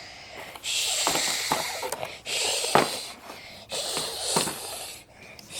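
A child making whooshing, hissing breath sounds with her mouth to imitate storm wind, in four bursts of about a second each.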